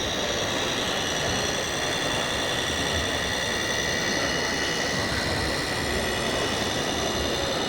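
Steady high whine of radio-controlled scale model construction machines and trucks running, over a dense, steady background din.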